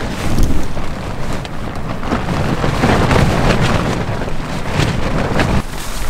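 Strong, gusty wind hitting a REI Half Dome 2 Plus tent, heard from inside. It is a loud rushing and buffeting that surges and eases in irregular gusts.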